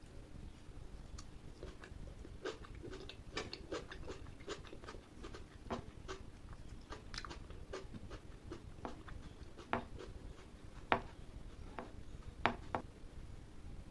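Close-miked eating sounds from a curry-and-rice meal: an irregular string of sharp, wet mouth clicks and smacks while chewing, with a few louder ones near the end.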